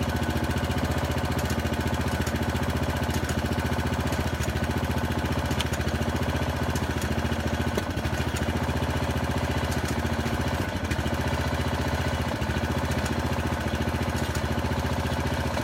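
Small gas engine of the hydraulic jacking unit running steadily while it drives the pier jacks lifting a settled brick veneer wall. Its note wavers slightly every second or two.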